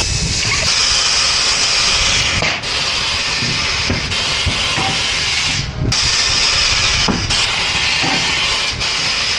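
Compressed air hissing loudly in long stretches, cutting out briefly four times, as air rushes out or is blown during a tire repair.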